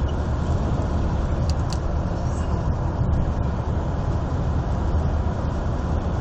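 Mercedes W203 C-Class CDI diesel engine running steadily, with two brief high chirps about a second and a half in.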